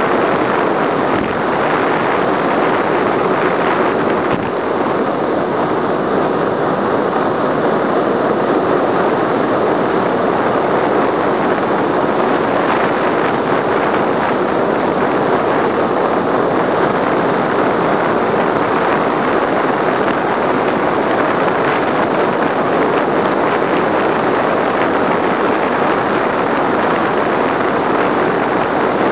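Steady rush of wind over the microphone of a camera on a bicycle descending fast.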